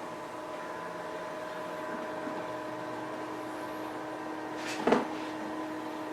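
A small motor humming steadily with several even tones, with a single sharp knock about five seconds in.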